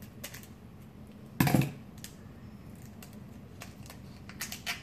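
Scissors snipping the foil wrapper of a trading-card booster pack, a few sharp clicks, then one loud thump about a second and a half in. Near the end the foil wrapper crinkles as it is pulled open.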